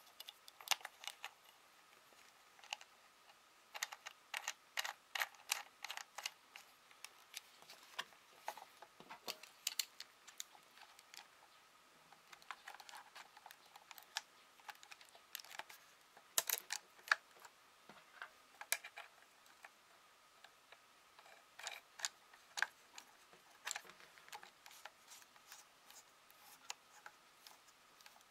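Irregular small clicks and taps of hard plastic and metal parts being handled as a handle mount is fitted onto a camcorder's accessory shoe and its thumbscrew worked, coming in clusters with short pauses between, over a faint steady high tone.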